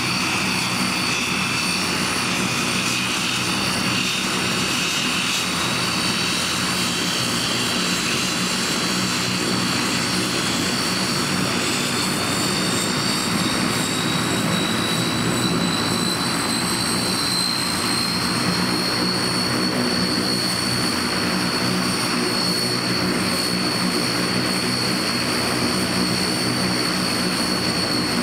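Antonov An-32's two Ivchenko AI-20 turboprop engines running as the aircraft taxis slowly: a steady propeller drone under a high turbine whine that rises slightly in pitch about halfway through.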